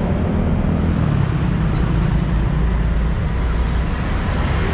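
Busy city street traffic: a steady mix of motorbike and scooter engines, cars and tyres passing close by, with a heavier low engine rumble swelling around the middle.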